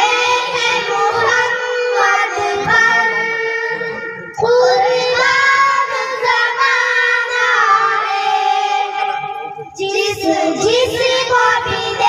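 Young girls singing a naat, a devotional song in praise of the Prophet Muhammad, into microphones. The melody goes in long held phrases, with short breaks about four seconds and about ten seconds in.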